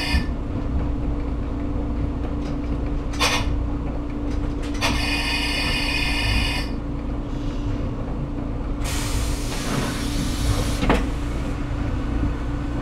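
Diesel railcar standing at a station with its engine idling in a steady hum. Over it come hisses of compressed air, one at the start, one about five seconds in and a longer one about nine seconds in, and a few sharp clunks.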